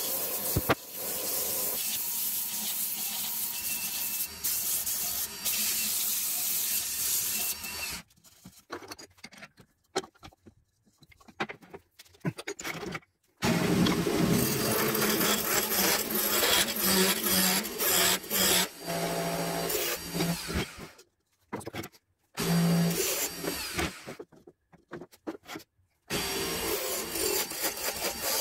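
Wood lathe running while a turning gouge cuts a spinning wood blank, a coarse scraping cut. Several times the sound drops abruptly to near silence, with only scattered clicks, before the cutting starts again.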